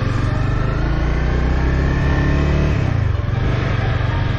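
Honda CBR300R's single-cylinder engine running while the motorcycle rides along, heard from on the bike. The engine note eases off briefly about three seconds in, then picks up again.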